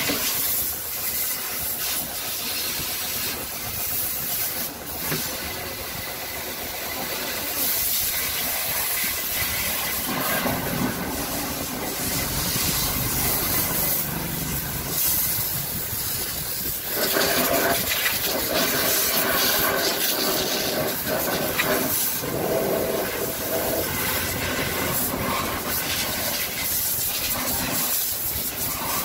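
Water jet from a garden hose spraying against a car's steel wheel and tyre, a steady hiss of spray and splashing that grows louder and fuller a little past halfway.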